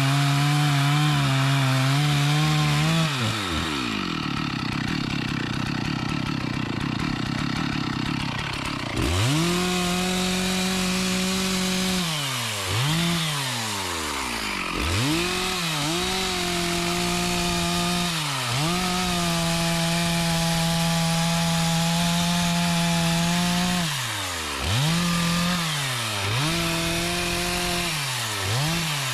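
Two-stroke chainsaw cutting mahogany. It runs at full throttle, drops to a rough idle about three seconds in, and revs back up about six seconds later. Its engine speed then dips and climbs again several times as the throttle is eased and reapplied.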